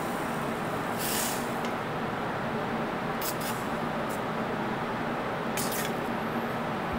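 Steady kitchen ventilation hum with a faint low tone, broken a few times by brief scrapes of a metal spoon against a stainless steel pan as food is spooned out.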